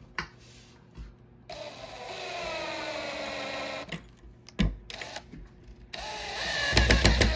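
Cordless drill driving screws through a caster wheel's metal bracket into particleboard. The motor whines for about two seconds, dropping slightly in pitch as the screw bites. After a pause with a few knocks, it runs again and ends in a rapid run of clicks.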